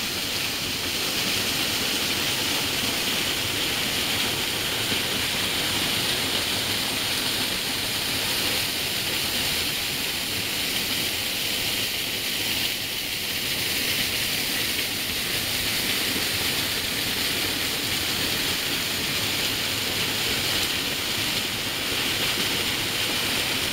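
Small forest waterfall pouring over rocks: a steady, continuous rush of falling water, easing a little in the middle range about halfway through.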